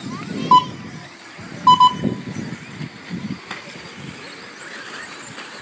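Short, high electronic beeps: one, then a quick run of three about a second later, typical of an RC race's lap-counting system as trucks cross the timing line. Beneath them, steady low background noise.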